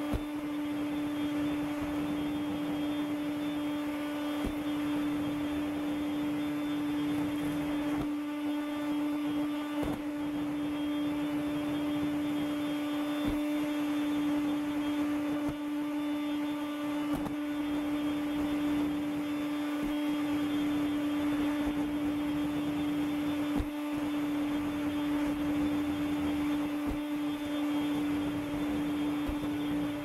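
Makita CL108FD 10.8 V cordless stick vacuum running steadily, a constant motor whine over the rush of air, with a few clicks as the nozzle sweeps the wooden floor.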